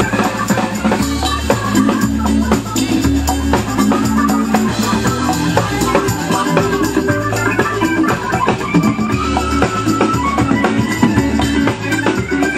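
Live band playing an instrumental groove: a drum kit keeping a steady beat under a repeating bass line, with guitar and keyboard on top.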